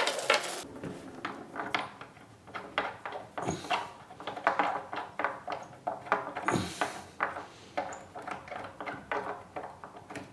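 A screw being turned by hand into the wood of an old cupboard: an irregular run of small clicks and creaks, with a couple of brief rasping scrapes.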